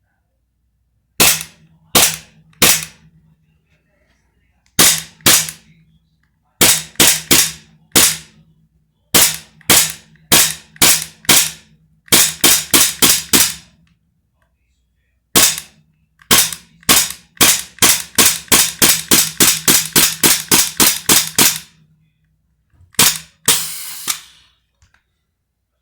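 E&C Glock gas-blowback airsoft pistol fired repeatedly: sharp cracks in short strings of two to five, then a quick run of about sixteen shots at roughly three to four a second. The last shot trails off in a short hiss.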